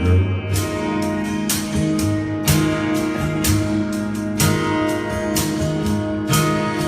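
Live band music with guitar playing an instrumental passage between sung lines of a country ballad, with regular sharp percussive hits.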